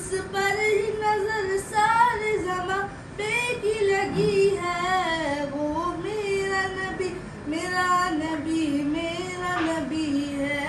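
A boy singing an Urdu naat solo, holding long notes that slide and waver in pitch, with brief pauses for breath.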